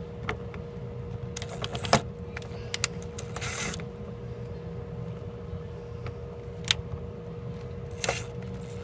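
Scattered clicks and knocks of a plastic mud flap and its small screws being handled and pressed into place at a car's wheel arch, with a short scraping rustle about three and a half seconds in, over a steady low hum.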